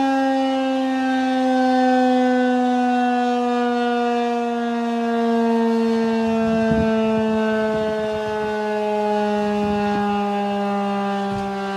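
Federal Signal 2001-130 electromechanical outdoor warning siren sounding a steady alert tone. The pitch sags slowly, and the sound swells and fades every few seconds as the rotating horn sweeps past.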